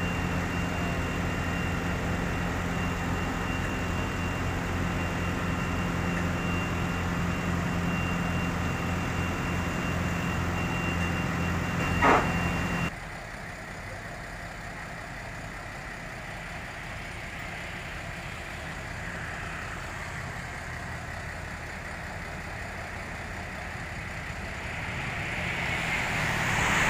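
A diesel truck engine runs steadily at idle with a steady high whine over it, and there is one sharp knock about twelve seconds in. The engine sound then stops abruptly and gives way to quieter road noise, with a minibus passing close near the end.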